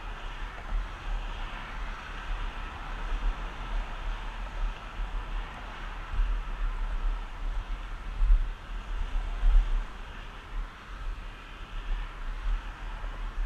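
Wind buffeting the microphone of a moving camera in irregular low gusts, over the steady hiss of skateboard wheels rolling on an asphalt path.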